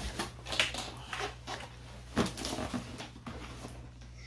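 Cardboard product box being lifted out of a larger shipping box and handled: irregular rustling and scraping of cardboard with a couple of sharper knocks, about half a second and two seconds in.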